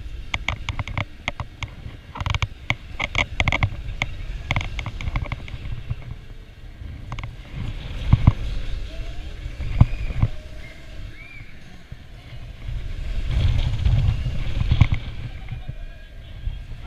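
Zamperla Mega Disk'O ride in motion, heard from a seat on the disc: a quick run of rattles and clicks over the first few seconds, then a low rumble of the disc running along its track with a few sharp knocks. The rumble swells near the end as the disc swings high.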